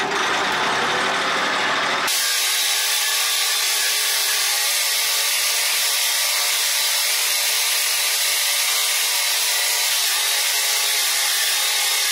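Minitractor engine running steadily under load as it pulls a single-bottom plough through the soil, heard from inside the cab. About two seconds in, the deep part of the sound drops out abruptly, leaving a thin, steady hiss.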